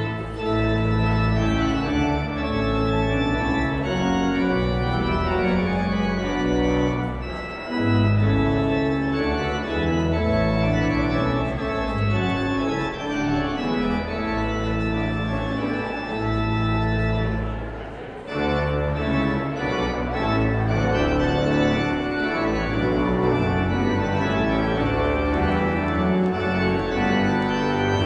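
Organ playing held chords over a deep pedal bass, the chords changing every second or two, with brief breaks between phrases about seven and eighteen seconds in.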